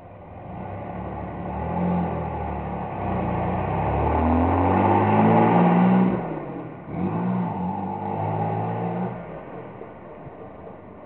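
1964 Corvair Spyder's turbocharged air-cooled flat-six accelerating past through a Thrush Welded muffler with a turn-down tip. The exhaust note builds and rises in pitch, drops out briefly just before seven seconds as at a gear change, then comes back lower and fades away.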